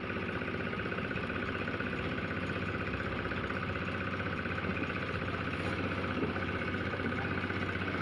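An engine running steadily at a constant speed, with an even hum.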